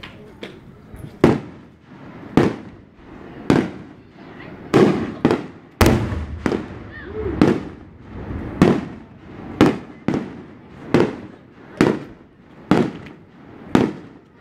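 Aerial fireworks shells bursting in a steady barrage: more than a dozen sharp bangs about a second apart, starting about a second in, each one trailing off in an echo.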